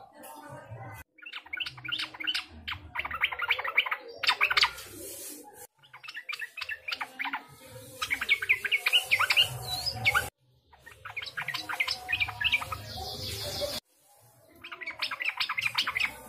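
Yellow-vented bulbul singing: repeated phrases of quick, bubbly chattering notes, each a second or two long with short breaks between, several of them breaking off abruptly.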